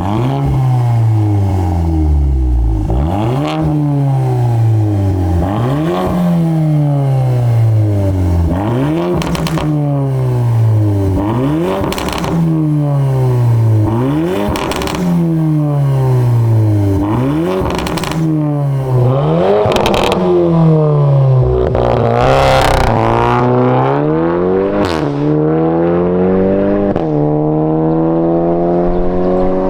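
VW Mk8 Golf R Variant's turbocharged four-cylinder, fitted with a Fi Exhaust valvetronic catback and sport downpipe, revved again and again at idle, about every two seconds. Each rev rises quickly and falls back, with sharp cracks on several lift-offs. About two-thirds of the way through, the car pulls away under hard acceleration, its pitch climbing steadily.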